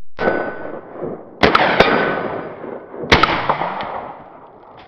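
Suppressed .22 LR AR-style rifle with an Odin Works Nav 22 suppressor firing three shots: about a second and a half in, again a moment later, and about three seconds in. Each shot is followed by a long fading echo, and a hit steel target rings after some of them.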